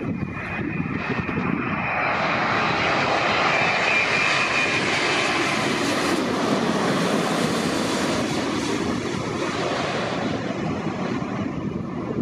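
Jet airliner passing low overhead on final approach to land. Its engine rush builds about two seconds in, is loudest midway and slowly fades, with a high steady turbine whine over the first few seconds.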